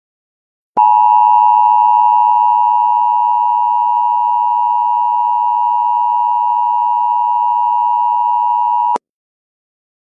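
Emergency Alert System attention tone: one loud, steady electronic tone that starts abruptly about a second in, holds for about eight seconds, and cuts off suddenly. It signals that an emergency alert message is about to be read.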